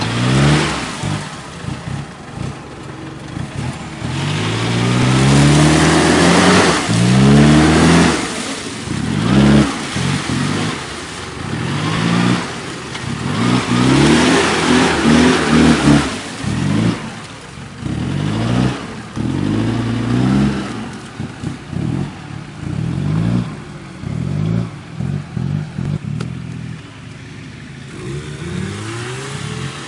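An off-road 4x4's engine revved hard again and again, the pitch rising with each burst of throttle and falling back, about one rev every second or two. The revving eases off in the last few seconds.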